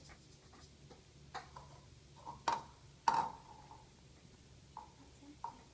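A few light clicks and taps of plastic Play-Doh pots and tools on a plastic tray and table, spread unevenly. The loudest comes a little after three seconds and has a short ring.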